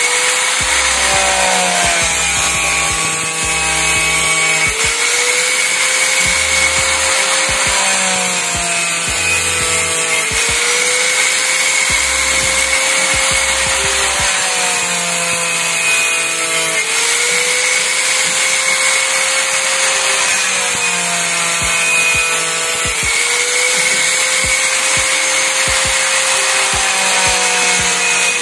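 Angle grinder fitted with a hacksaw-type cutting disc, running continuously as it cuts through PVC pipe, with a steady high motor whine over the cutting noise.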